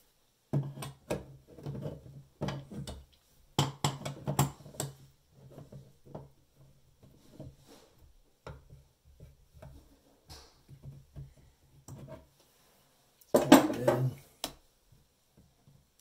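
Sharp metallic clicks and clinks of an adjustable wrench and faucet parts being handled and fitted on the faucet's brass cartridge, thickest in the first five seconds, with a louder clatter of knocks about 13 seconds in.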